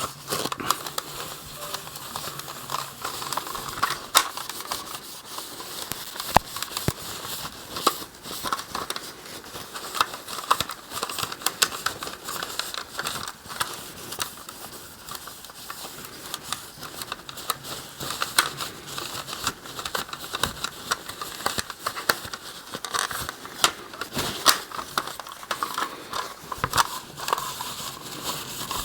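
Wiping and handling noise of a plastic toy space shuttle being rubbed down with baby oil: irregular rustling and scuffing with many light clicks of plastic.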